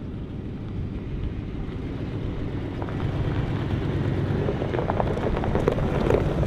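A 1990s Ford F-series pickup running as it drives up on a gravel road, growing steadily louder as it approaches, with crackling of the tyres on gravel as it gets close.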